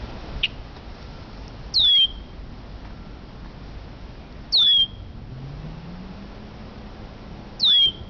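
Male red-winged blackbird giving three loud, short, down-slurred whistled calls, evenly spaced about three seconds apart.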